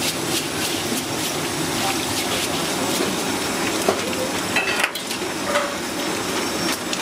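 Tap water running steadily while conch shells are scrubbed with a steel-wool scrubber on a wooden chopping block, a scratchy scraping over the flow, with a few knocks and clinks of shell, one sharp knock about four seconds in.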